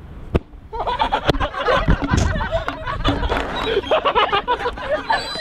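Young people laughing and chattering, with scattered sharp knocks. After a short near-quiet gap with one knock, the laughing starts about a second in and keeps on.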